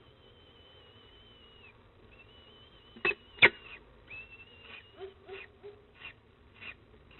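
Downy peregrine falcon chicks begging while being fed: thin, wavering high peeps, then two sharp, loud sounds about three seconds in, then short cheeps repeating about twice a second.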